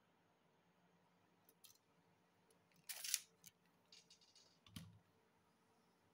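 Quiet handling noises from a tape measure and a stainless-wire rig with two treble hooks: a short scraping rush about three seconds in, a few light clicks around it, and a soft thump near the five-second mark, over near-silent room tone.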